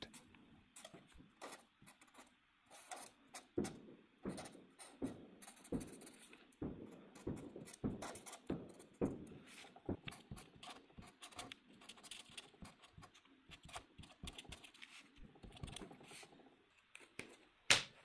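Felt-tip marker drawing on a sheet of paper: faint, irregular short scratching strokes, with a sharper click near the end.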